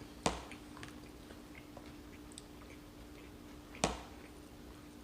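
A one-year-old baby chewing pulled pork with soft mouth sounds, and two sharp clicks, one just after the start and one near four seconds in, over a steady faint hum.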